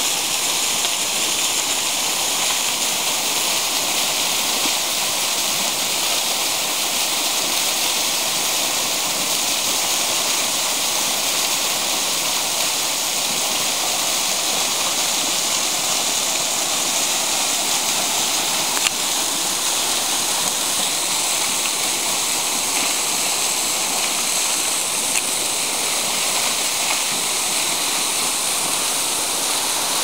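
Steady rushing and splashing of a small mountain waterfall, its thin streams falling down a rock face and running over boulders below. The sound is an even, hissy wash with no change in strength.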